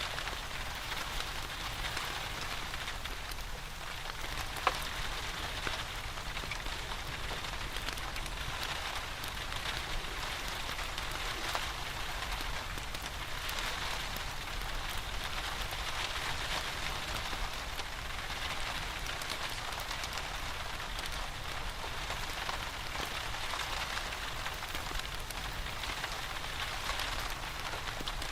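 Steady rain with a fireplace crackling underneath: scattered small pops over the even hiss of the rain, and one sharper pop about five seconds in.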